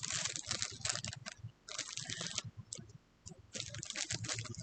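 Packaging being handled and unwrapped: irregular crinkling and rustling with small clicks, pausing for about a second midway, then starting again.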